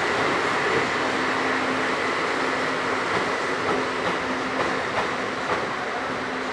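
JR Freight train passing at a railroad crossing: a steady rumble of rolling wagons with a few clicks and a faint steady hum, easing off a little near the end.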